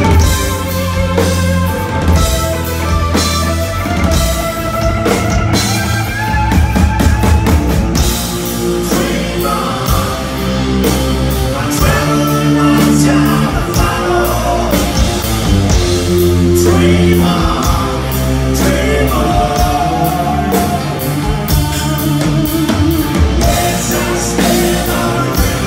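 Hard rock band playing live: electric guitars, bass and drum kit, loud and steady, with the lead singer singing over them.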